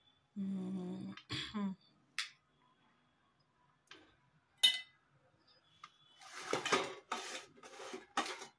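Steel spoon clinking and scraping against a stainless steel bowl and plate while dishing out potato fry. There are a few sharp metallic clinks, the loudest about halfway through, then several quick scraping strokes near the end.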